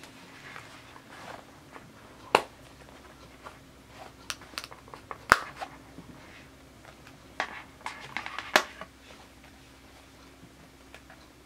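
Swarovski travel wallet being handled and folded shut: soft rustling and tapping of its flaps, with three sharp clicks of its snap fasteners about two and a half, five and a half and eight and a half seconds in.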